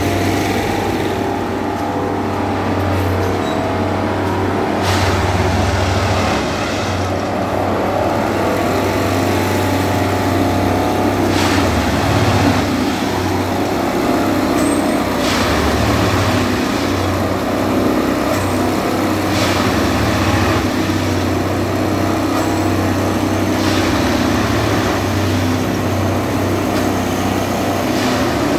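Plasser & Theurer 09-3X Dynamic Tamping Express track machine working: its engine runs steadily under a low hum that swells and drops every second or two as the tamping units cycle. A brief rush of noise comes roughly every four seconds.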